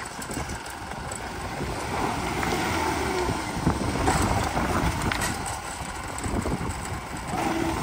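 Mahindra Bolero's diesel engine running under load as the SUV crawls up out of a rocky pit, with a few sharp knocks from the rocks under it and wind on the microphone.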